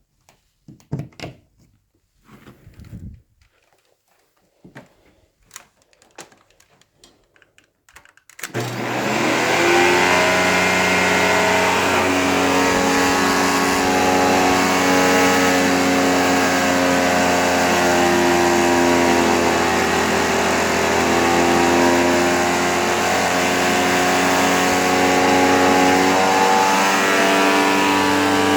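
A few faint clicks and knocks, then about eight seconds in the Sharp Twin Energy EC-TU2709S upright vacuum is switched on: its Ametek motor spins up within a second and runs at a steady, loud, high whine.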